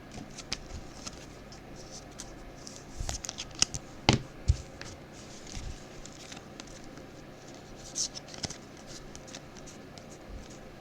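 Trading cards being handled and flipped through: soft scrapes of card stock sliding over card, with scattered light clicks and a few sharper taps, a cluster about three to four seconds in and another near eight seconds.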